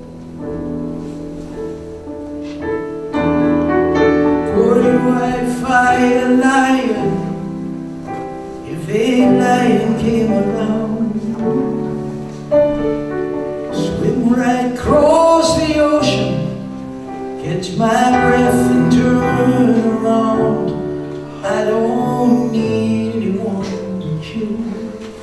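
Grand piano played live, with a man's voice singing over it from about four seconds in.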